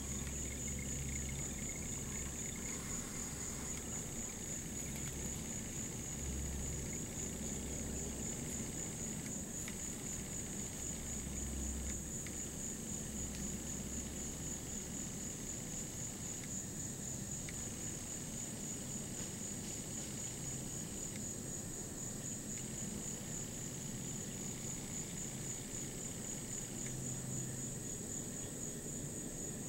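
A steady chorus of insects in woodland, a high-pitched chirring that pulses rapidly and evenly. A low rumble comes and goes during the first half.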